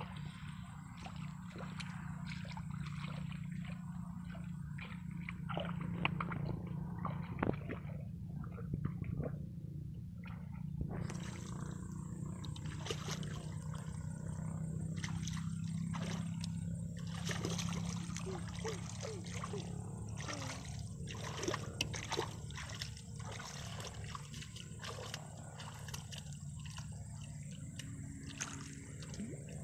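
Muddy water sloshing and splashing, with mud squelching, as hands dig and feel through the bottom of a shallow, flooded rice-field pool. A steady low hum runs underneath, and a steady high whine runs in the background except for a stretch of several seconds early on.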